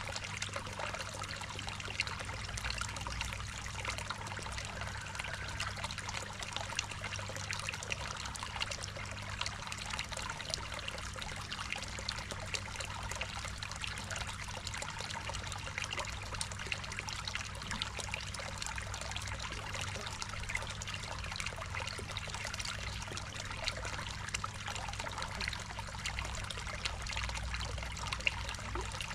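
Water trickling and splashing steadily into a koi pond, with a low steady hum underneath.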